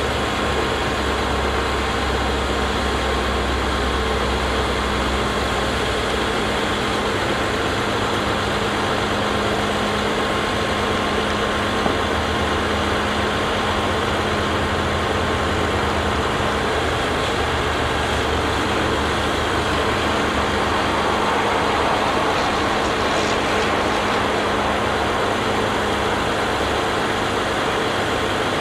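Diesel engine of an International 4900 bucket truck running steadily, driving the hydraulics that raise and extend the Altec aerial boom. Its low note shifts a few seconds in and again about midway.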